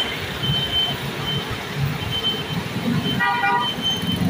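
Road traffic with a low engine rumble from buses and passing vehicles, a high steady beep sounding on and off every half second or so, and a short vehicle horn toot about three seconds in.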